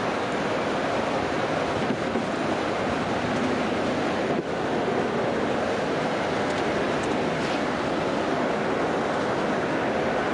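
Steady rushing road and wind noise of a car driving at speed.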